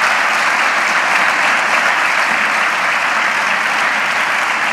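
Audience applauding, a steady, dense wash of clapping.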